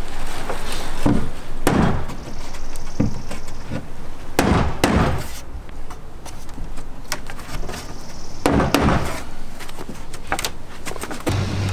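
Claw hammer driving headed face nails into charred Japanese cypress (yakisugi) siding boards, a series of irregular sharp knocks with a few heavier blows. The nails are being set to tighten boards that have loosened and opened at the miters over the years.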